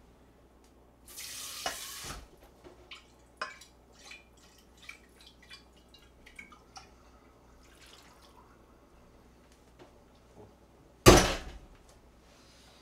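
A kitchen tap runs briefly about a second in, followed by scattered drips and light clinks. Near the end comes a single loud clank of a metal pot.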